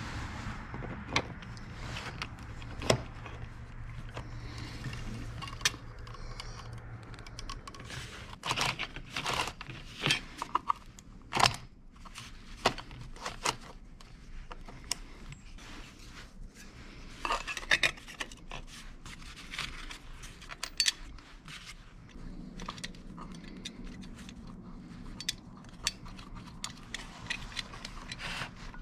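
Loose saw chain clinking and rattling as it is worked around a chainsaw guide bar and sprocket by hand, with irregular sharp metal clicks and light scrapes. The clicks come in clusters, busiest about a third of the way through and again just past halfway.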